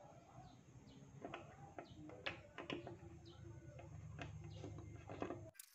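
Light metallic ticks of a T-handle socket wrench loosening the 8 mm nuts on a motorcycle's fuel-pump plate, about eight in all, spread unevenly. Faint bird calls sound in the background.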